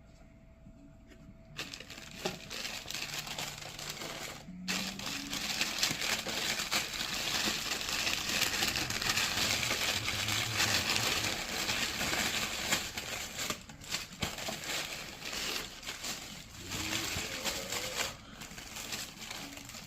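Packing paper in a sneaker box crinkling and rustling as it is pulled back and handled. It starts about a second and a half in and stops briefly near five seconds.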